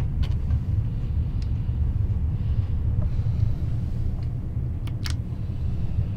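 Steady low rumble of the sleeper train running, heard inside the sleeping cabin, with a few faint sharp clicks, two close together about five seconds in.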